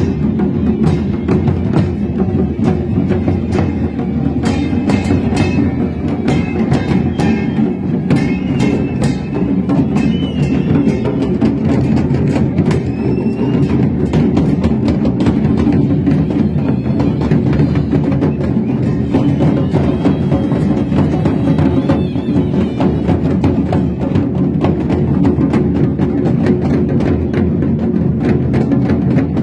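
Loud percussion music with dense, continuous drumming.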